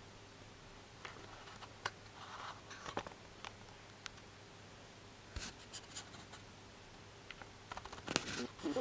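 Faint scattered clicks, taps and scratchy rustles of small objects being handled, over a low steady hum, with a denser burst of rustling near the end.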